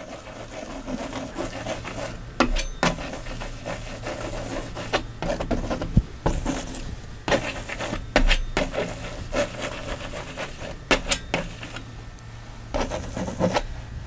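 Palette knife scraping and tapping thick oil paint onto a stretched canvas with some pressure, laying in rough rock texture. An irregular rasping with scattered sharp taps throughout.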